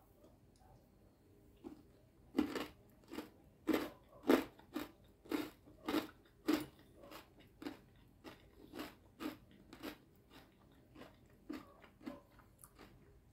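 A person chewing a mouthful of crunchy salad with croutons and cucumber: crisp crunches at about two a second, starting a couple of seconds in, loudest at first and growing weaker toward the end.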